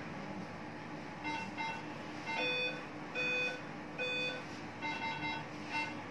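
A string of electronic beeps at a few different pitches, some short and quick, some held longer, in an uneven tune-like pattern.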